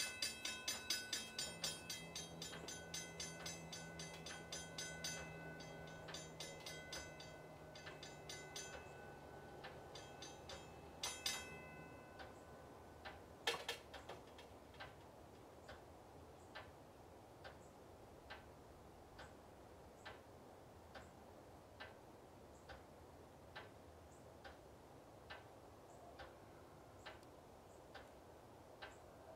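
Mechanical railroad crossing bell ringing rapidly, its strikes growing uneven as it sticks in the 17-degree cold, over the steady hum of the crossing gate mechanism lowering the arm. Both stop about twelve seconds in, followed by a sharp clunk, then a regular ticking just under once a second from the flashing signal.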